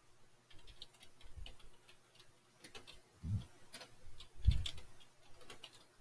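Scattered clicks of a computer keyboard and mouse during text editing. Two heavier low knocks come a little past halfway, the second, about four and a half seconds in, the loudest.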